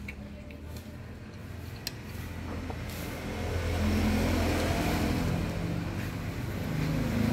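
A motor vehicle engine running, growing louder about halfway through and again near the end, with a single sharp click about two seconds in.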